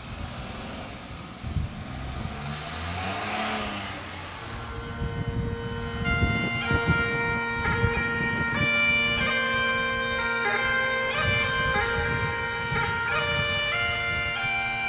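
Outdoor noise with a vehicle passing in the first few seconds, its hum rising and then fading. About six seconds in, bagpipes start playing a melody over a steady drone.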